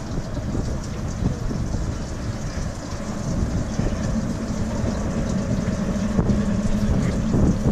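Steady low rumble of wind on the microphone, with a steady engine hum coming in about three seconds in.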